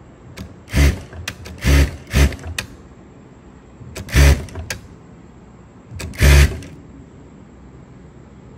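Industrial single-needle sewing machine running in five short bursts of a few stitches each, stopping between them while the padded fabric is turned along a curved seam. Light clicks come between the bursts.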